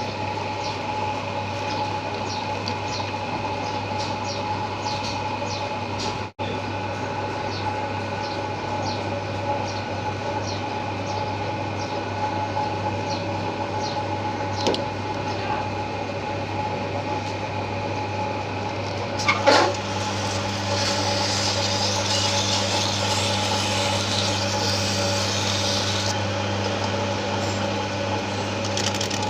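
A machine running with a steady hum, with light ticks about twice a second through the first half. About 19 seconds in comes a sharp loud knock or scrape, and a hiss follows for several seconds.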